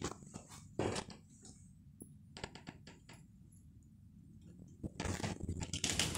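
A few sharp light clicks and taps, a quick cluster of them midway, followed by denser rustling near the end, typical of a phone being handled while it is carried through rooms.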